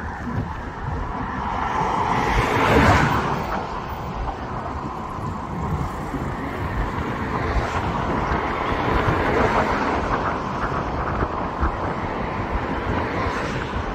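Outdoor city traffic hum with wind buffeting the microphone, swelling briefly a couple of seconds in; an elevated light-rail train starts to approach across the river bridge near the end.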